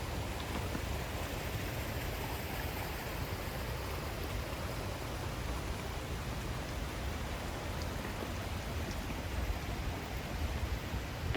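Waterfall with a heavy flow of water, a steady unbroken rush of falling water.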